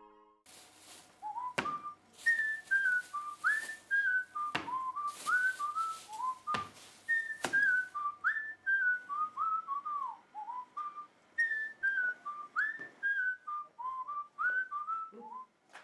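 A person whistling a tune in gliding notes, playing one phrase and then repeating it. A few sharp knocks sound over the whistling in the first half.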